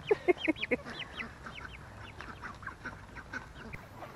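Chickens being herded, calling in a quick run of short squawks and clucks, loudest in the first second and thinning out after.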